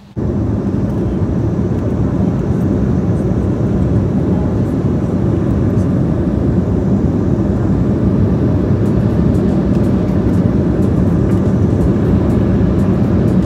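Jet airliner cabin noise in flight: a steady, loud rushing of engine and airflow noise with a low hum underneath, starting abruptly.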